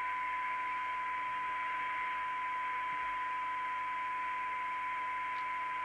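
A steady test tone from a signal generator, received by a DNT Contact 40 CB radio and played through its speaker over a band of hiss, while the receiver's T5 coil is being aligned.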